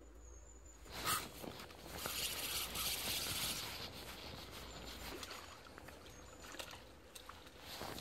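Dry reeds rustling and crackling as they are brushed, with a sharp snap about a second in and a denser rustle for a couple of seconds after, then scattered fainter crackles.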